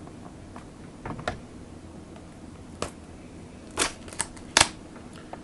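Handling of a trading-card box and its packaging: a handful of scattered clicks, taps and short scrapes, the loudest about four and a half seconds in.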